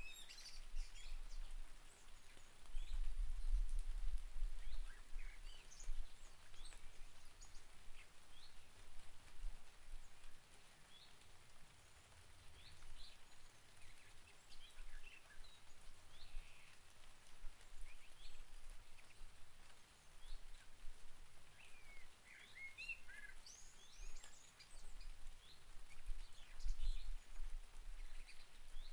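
Steady rain with birds chirping and calling now and then, busiest about three-quarters of the way through. A low rumble swells and fades a few times and is the loudest sound.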